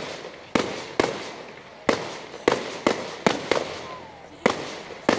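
Aerial fireworks shells bursting overhead: about nine sharp bangs at uneven intervals, each trailing off quickly.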